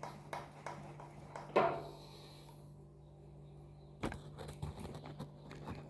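Giant Crest bicycle suspension fork making an unwanted knocking noise as it is worked: a few spaced knocks, one louder clunk about a second and a half in, then a quick run of knocks near the end.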